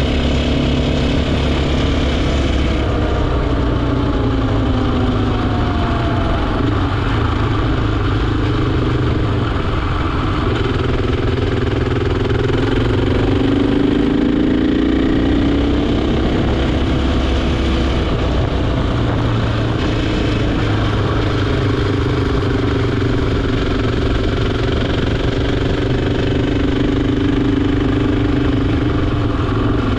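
KTM 450 EXC's single-cylinder four-stroke engine running steadily under way, its note falling a few seconds in and rising again around the middle as the throttle changes through the bends.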